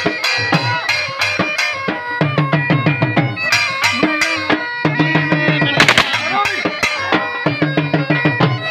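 A bagpipe plays a folk tune over its steady drone, with two dhol drums beaten with sticks in a dense rhythm. There is a brief loud crack about six seconds in.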